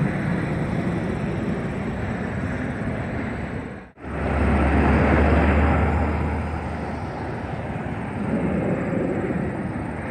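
Jet aircraft passing overhead, a steady rush of engine noise. After a sudden cut about four seconds in, highway traffic takes over: a box truck and cars going by, the noise swelling as they pass.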